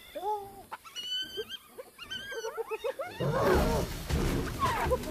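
Spotted hyenas squealing and whining in short rising-and-falling calls over a kill. About three seconds in, a male lion charges in with a sudden loud, rough growling rush, and the hyenas' squeals go on over it.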